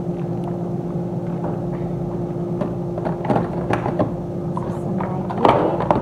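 Plastic food containers knocking and clattering as they are put back onto a freezer shelf: a few knocks about three seconds in and a louder clatter near the end, over a steady low hum.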